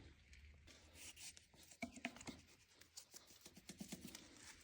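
Near silence with faint, scattered light clicks and rubbing.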